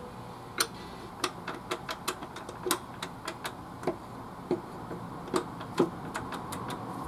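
A run of sharp, irregularly spaced clicks and light knocks of hard objects, about two a second, over a faint steady background.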